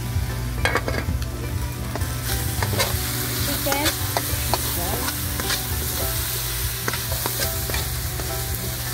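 Chicken pieces sizzling in a hot wok while a spatula scrapes and knocks against the pan as they are stirred. The sizzling hiss grows louder about two seconds in.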